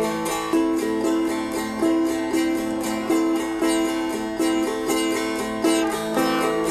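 Instrumental music led by a plucked string instrument playing a melody, with notes struck roughly every half second.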